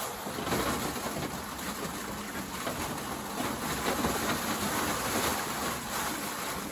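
Scallops sliding and tumbling out of a tipped wire-mesh cage into a steel hopper: a dense, continuous clatter of shells on metal and wire.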